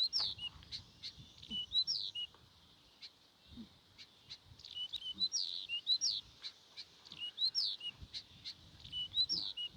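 A small bird singing short phrases of quick, rising whistled notes, ending in a brief lower note, repeated every second or two. Faint scattered clicks run underneath.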